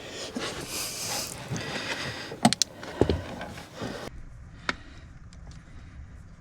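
Hand-handling noise while wiring a 12-volt accessory outlet: rustling and fiddling with wires and connectors, with several sharp clicks and knocks, the loudest about two and a half and three seconds in and another near five seconds, quieter toward the end.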